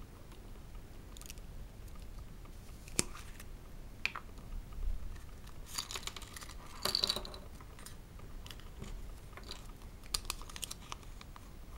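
Yellow plastic Kinder Surprise capsule being handled and opened, then its foil-wrapped parcel unwrapped by hand. Scattered sharp plastic clicks and taps, a burst of foil and paper crinkling a little past the middle, and more clicks and rustles near the end.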